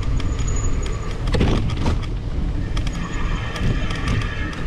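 Bicycle rolling along an unsealed dirt path, the tyres crunching on grit and leaves and the bike rattling in many small clicks over a steady low wind rumble on the microphone.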